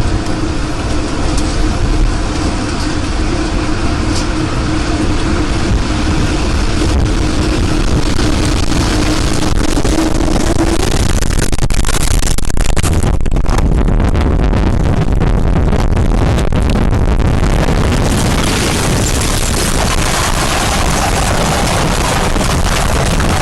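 Tornado wind noise, a loud continuous rush that buffets the camera microphone, with a steady hum under it for about the first half. Near the middle the sound breaks up in brief dropouts, then it thickens again.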